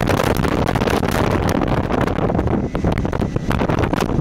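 Gale wind of about 45 knots blowing across the microphone on a sailing yacht's deck: a loud, continuous rumble of wind noise.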